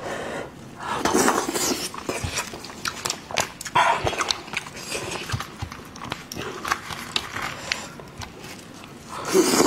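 Close-miked wet eating sounds of someone chewing and slurping sheep's head meat, with lip smacks and clicks. Louder bursts come about a second in, around four seconds in and near the end.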